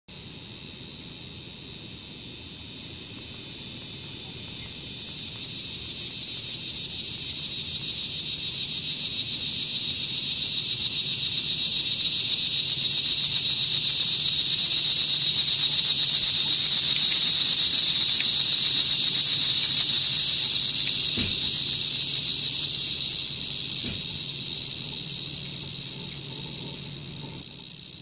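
A cicada's buzzing song: a high, rapidly pulsing drone that swells in loudness to a peak past the middle and then fades away.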